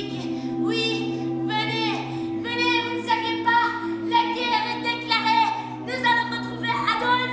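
Voices singing unaccompanied: long held low notes, with a higher voice moving through a melody above them.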